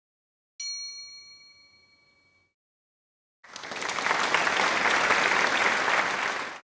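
A single bell ding that rings out and fades over about two seconds, followed by about three seconds of applause that cuts off abruptly, edited in as sound effects.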